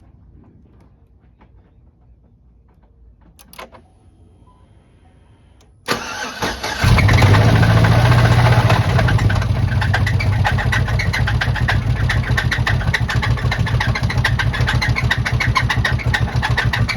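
2007 Chevy Tahoe's V8 engine, with all its belts off, cranking and catching about six seconds in, then running loud with a fast, regular screeching and knocking from inside the engine. The owner takes it for a broken rod or a failed bearing, with lifters or the valve train as the hopeful alternative.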